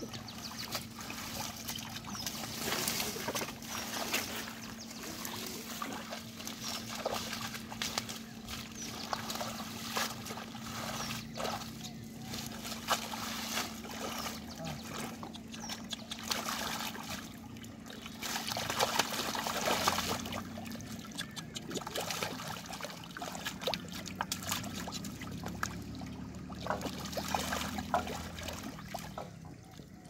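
Hands splashing and sloshing in shallow muddy water while groping for fish, with irregular splashes and water dribbling off, over a steady hum.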